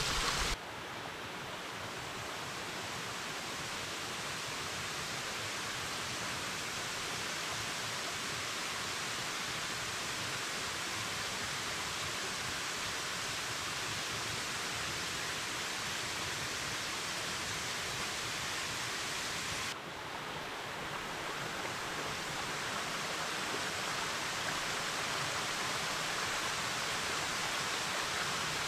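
Steady rushing of a small forest stream and waterfall over rocks. The level drops abruptly twice, about half a second in and again around twenty seconds in, then builds back.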